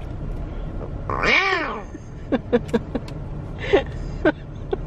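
A meow-like call: one long call rising and falling in pitch about a second in, then several short squeaky chirps, over the steady low road rumble inside a moving car.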